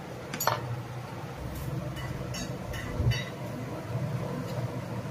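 A few short clicks and knocks, the loudest about half a second in and about three seconds in, over a low steady hum.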